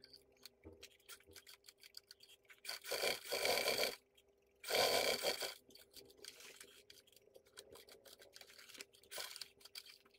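Sewing machine topstitching through a leather bag in two short runs of about a second each, a few seconds in, over a steady faint hum, with small clicks and rustles of the leather being handled between runs.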